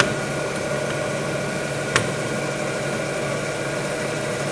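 Butcher's meat band saw running with a steady hum while a bison porterhouse steak is sawn off the short loin, with a sharp click about two seconds in.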